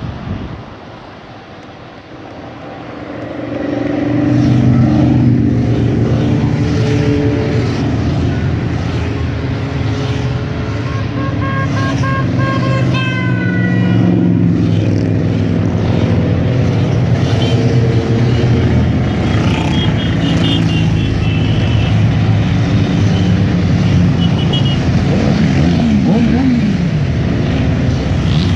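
A long stream of motorcycles riding past close by, their engines running and revving, in a steady build-up of passing engine sound that swells about four seconds in. A few pitches fall away as single bikes go by.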